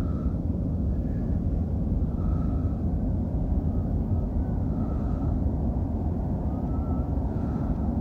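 Steady low rumble of an underground railway station's background noise, with faint brief tones now and then above it.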